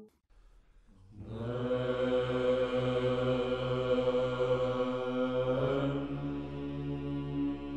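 Slow chant fading in after a brief silence: voices hold long notes over a steady low drone, moving to a new note about three-quarters of the way through.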